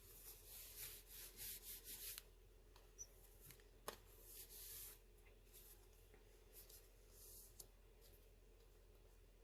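Faint rustling and rubbing of cardstock being handled and pressed down, with a single sharp tap about four seconds in.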